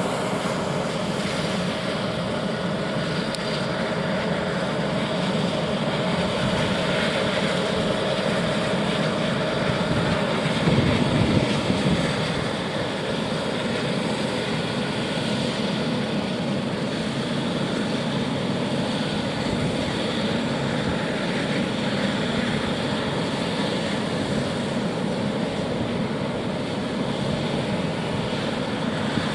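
Airbus H135 (Eurocopter EC135) helicopter's twin turbine engines and rotor running steadily. A steady whine drops away about ten seconds in, followed by a short louder rush just after.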